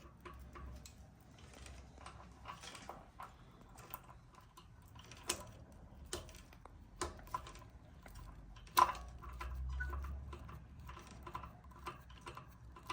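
Scattered light clicks and taps of small parts and tools being handled during bicycle assembly, with a sharper click about nine seconds in.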